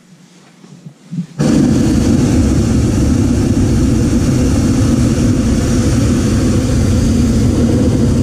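Hot air balloon's propane burner firing overhead: a sudden loud, steady roar that starts about a second and a half in and keeps going.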